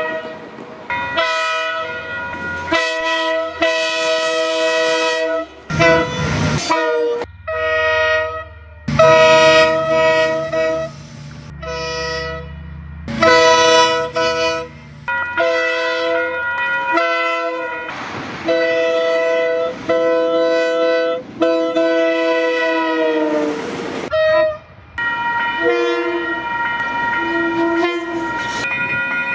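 KiwiRail locomotive air horns sounding again and again, short and long blasts, each a chord of several steady tones. A low rumble of the train runs under some of them.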